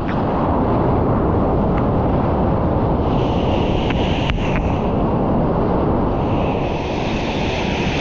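Ocean surf rushing steadily, with wind buffeting the microphone.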